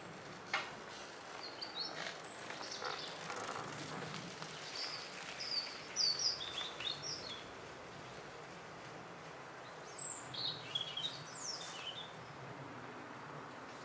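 Small birds chirping, short high calls in two spells, the second starting about ten seconds in, over a steady outdoor hiss, with a few light clicks.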